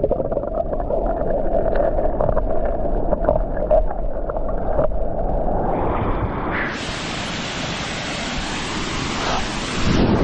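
Waterfall rushing. For the first six seconds it sounds muffled, with a steady droning tone over the water noise. About seven seconds in it opens into a full, even hiss of falling water.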